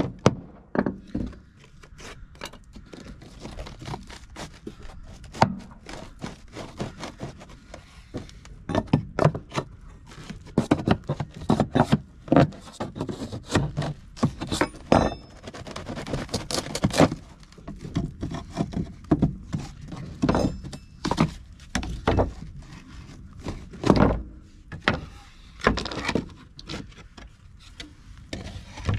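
Fiber cement siding boards being broken and pried off a wall: irregular thunks and sharp knocks with scraping in between.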